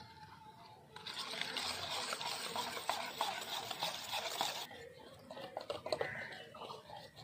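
Wire balloon whisk beating cake batter in a stainless steel bowl: rapid, continuous whisking that starts about a second in and stops just before five seconds, followed by a few lighter, scattered taps of the whisk against the bowl.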